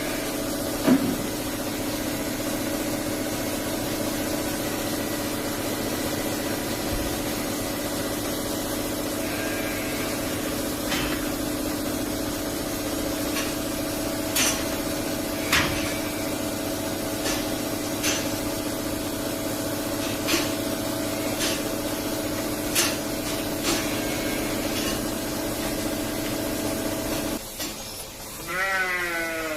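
Steady machine hum in a dairy barn, with scattered sharp clicks and knocks over it. Near the end the hum cuts off suddenly and a cow gives a short bawl that rises and falls in pitch.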